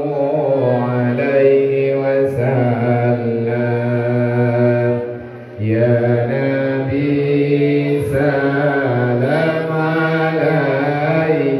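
Unaccompanied chanting of selawat (praise of the Prophet Muhammad): a man's voice over a microphone leads in long, slowly bending held notes while the standing congregation sings along. The chant breaks briefly about five and a half seconds in, then carries on.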